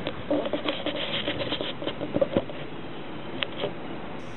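Handling noise from gear being moved and set up to shoot: rubbing with a run of small clicks and knocks over the first two and a half seconds, then one more click about three and a half seconds in.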